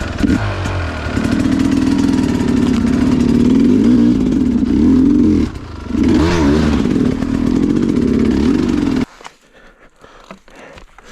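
Sherco two-stroke enduro dirt bike engine running at low revs under a feathered throttle, with a brief drop and a quick blip back up about six seconds in. It then cuts out suddenly about nine seconds in.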